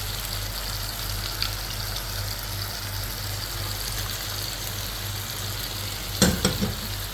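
Beef and vegetables sizzling steadily in a hot stir-fry pan, with a low electrical hum underneath. A few sharp knocks about six seconds in, like a utensil striking the pan.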